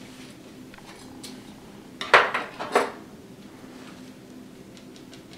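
A short clatter and scrape about two seconds in, then a second one just under a second later: a brush or tool knocking and scraping on the paint palette while paint is mixed.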